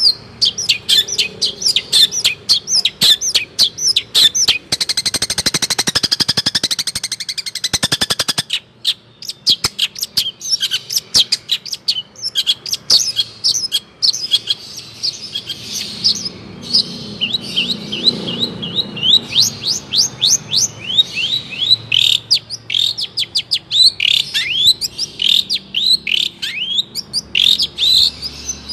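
A songbird singing a fast, varied song of rapid chirps. About five seconds in comes a quick rattling trill lasting a few seconds, and the later part is a run of repeated downward-sweeping notes.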